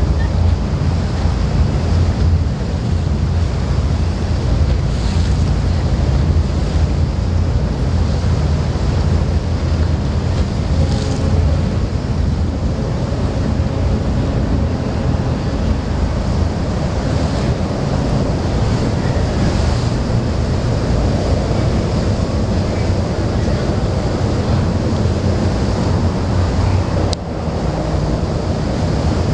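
Wind buffeting the microphone and water rushing along the hull of a motor yacht under way, over a steady low rumble. A single brief click near the end.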